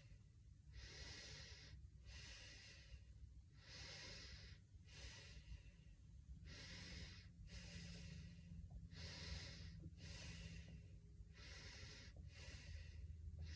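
Faint breathing through the nose, about ten short hissing breaths roughly a second apart, the lips held shut and the cheeks full of air.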